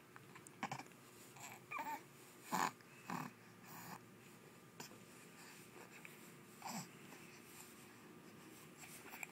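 A young baby making about six short, breathy coos and grunts, mostly in the first four seconds, with quiet pauses between.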